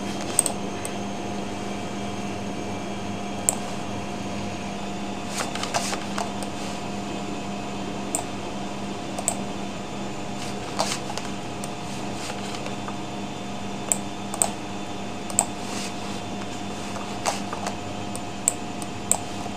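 Scattered sharp computer mouse and keyboard clicks, about twenty spread irregularly, over a steady electrical hum from the recording setup.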